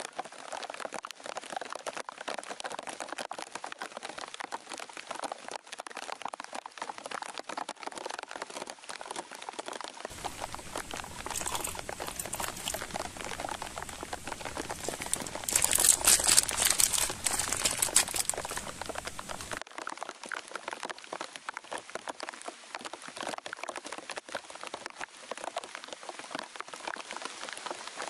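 Steady rain pattering on leaves and foliage, with dense fine drips. About halfway through there is a louder stretch of crackling for a few seconds.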